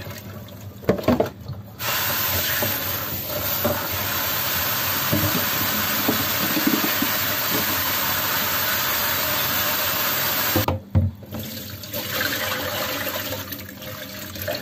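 Kitchen tap water running into a plastic colander of sweet potato leaves in a stainless steel sink: a steady rush that starts about two seconds in, stops briefly about eleven seconds in, then runs on more quietly as the leaves are rinsed by hand.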